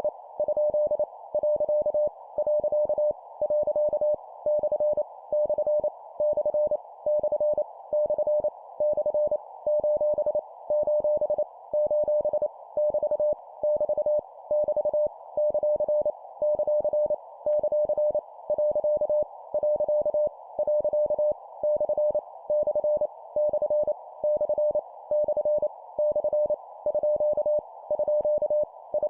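Morse code (CW) sent at 25 words per minute as a single steady mid-pitched tone keyed on and off in short and long elements. The punctuation characters come in quick groups separated by short gaps, over a constant faint band of hiss.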